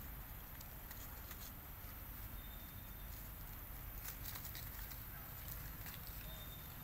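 Faint scattered crackling and rustling of dry leaf litter as young macaques scamper and wrestle on it, over a steady low rumble.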